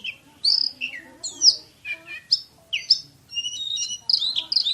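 Oriental magpie-robin (kacer) singing: quick phrases of sharp whistled notes that slide up and down, separated by short pauses.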